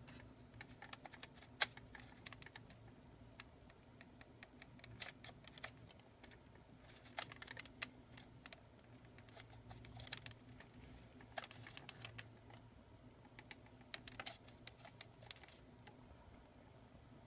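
Bursts of small plastic clicks and rattles as the 1979 Kenner Alien figure's mechanical jaws are worked by hand, coming in short clusters over a faint low hum.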